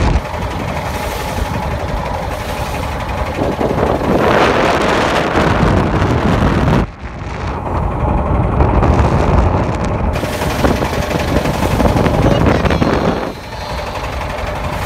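Wind buffeting the microphone aboard a wooden boat crossing choppy open water: a loud, steady rushing, strongest about four to seven seconds in, with a sudden brief dip about seven seconds in.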